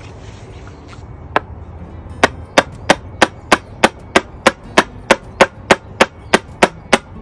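Hammer striking a steel punch held against a hard ceramic teacup padded with cloth, to knock a drainage hole through it. One single tap about a second in, then a steady run of sharp taps at about three a second.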